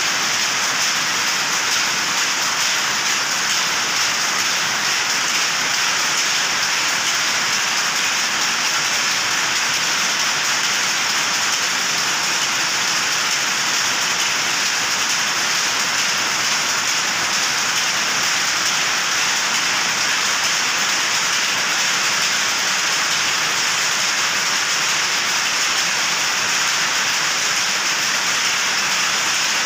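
Steady, even din of many powerlooms running together in a weaving shed, their clatter blended into a constant hiss-like noise with no single beat standing out.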